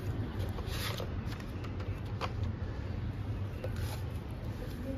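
Steady low background rumble, with a few faint light clicks or rustles about one, two and four seconds in.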